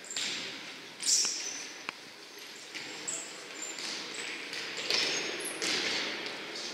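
Futsal play on an indoor court: sneakers squeaking on the hall floor in short high chirps, with a couple of sharp ball kicks about a second and two seconds in.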